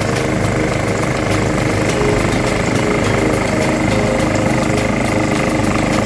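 Gas-engine two-stage snowblower running steadily while throwing snow out of its chute.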